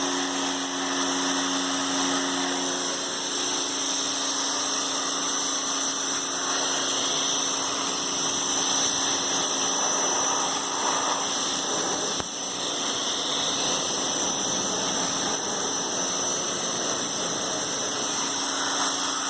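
An 1800 PSI electric pressure washer running steadily: its motor and pump hum at a constant pitch under an even hiss of water spraying.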